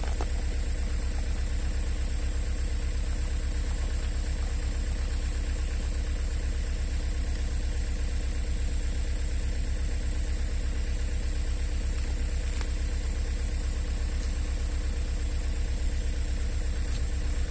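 An engine idling steadily, with an even, rapid low throb that does not change.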